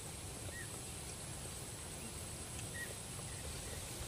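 Quiet outdoor ambience: a steady low rumble under a thin, steady high-pitched hum, with two short chirps, one about half a second in and one near three seconds in.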